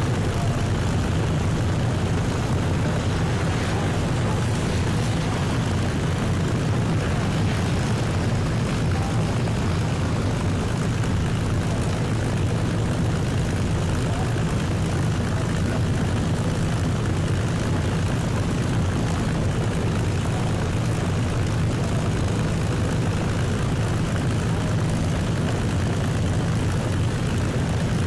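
Boeing B-29 Superfortress's four Wright R-3350 eighteen-cylinder radial engines running at taxi power, propellers turning, as the bomber taxis. A steady, deep drone that holds without change in pitch or level.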